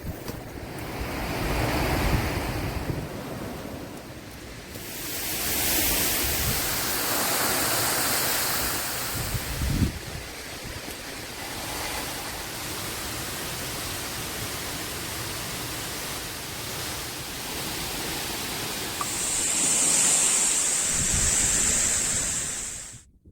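Rushing water, as from a waterfall or cascade, with gusts of wind buffeting the microphone. Near the end a steady high hiss joins in, and the sound cuts off suddenly at the very end.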